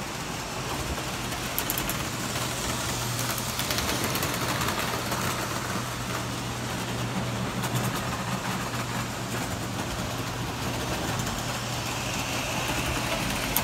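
Model trains running on a layout: a steady electric motor hum with the rolling noise of wheels on the track and faint scattered ticks.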